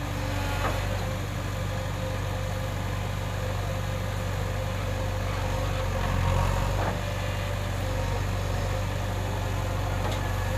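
Diesel engine of earthmoving machinery running steadily at low revs, swelling briefly about six seconds in.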